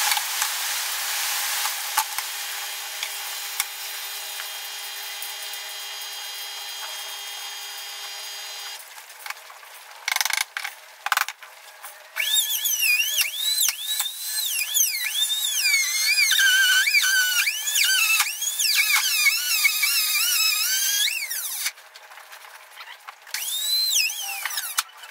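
Handheld trim router running with a high whine, steady for the first part. After a few knocks about halfway through, its pitch repeatedly sags and recovers as the bit cuts into the laminated plywood panel, then falls briefly quiet before one more cut near the end.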